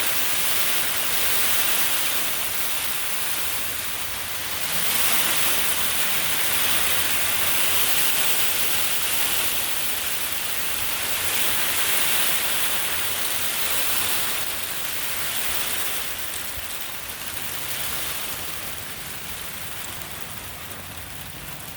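Hard rain mixed with ice pellets pelting down in a storm band, swelling and easing in waves and dying down somewhat over the last few seconds.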